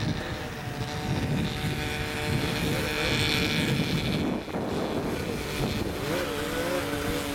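Small 120 cc youth snowmobile engines running, their pitch wavering up and down, with wind buffeting the microphone.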